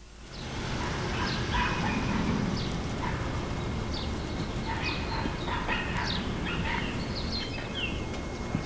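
Several dogs barking in short, scattered barks over a steady background noise, fading in at the start.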